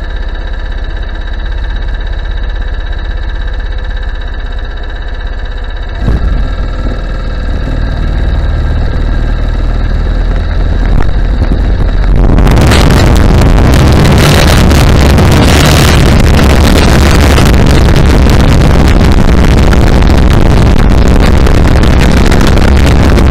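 Go-kart engine running steadily, growing louder about six seconds in as the kart gets under way. From about halfway through, heavy wind buffeting on the helmet-mounted microphone drowns almost everything as the kart picks up speed.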